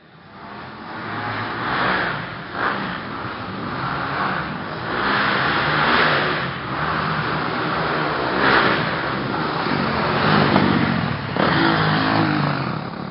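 Dirt bike engine revving up and falling back again and again as it rides round the track, several hard throttle swells about six, eight and a half and ten seconds in.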